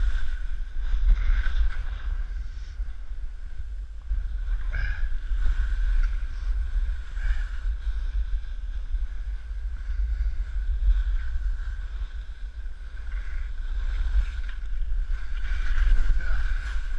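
Wind buffeting the microphone of a camera carried by a skier moving downhill, over the hiss and scrape of skis on snow.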